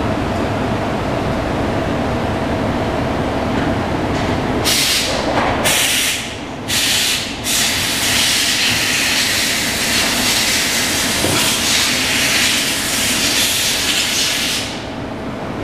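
Motorcycle rear rim spinning on a wheel stand, with a steady mechanical whir. About five seconds in, a loud hiss starts in short bursts, then runs steadily and stops shortly before the end.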